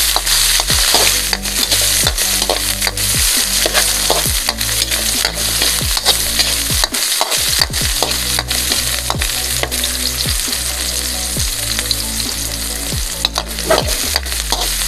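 Garlic and onion sautéing in hot oil: a steady sizzle, with a spatula stirring and clicking against the pan about twice a second.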